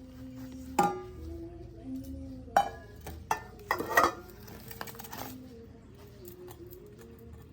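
Cookware clinking as it is handled and unpacked: a few sharp ringing clinks, then a quick cluster of knocks and clatter just before the middle, with quieter handling afterwards.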